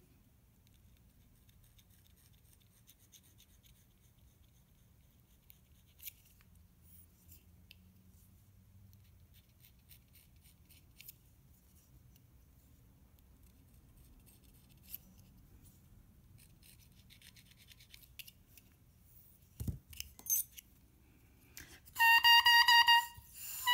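Faint scraping of a reed knife on the cane of an oboe reed's tip, then near the end the bare reed blown on its own: a brief, bright, reedy crow, testing its response after the sides of the tip were thinned.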